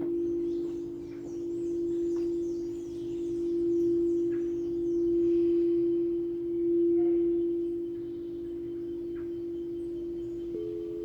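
Singing bowl ringing with one steady tone that swells and fades in slow waves. A second, higher-pitched bowl comes in just before the end.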